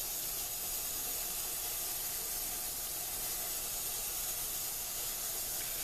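Steady, even hiss that holds at one level, with no knocks or other events.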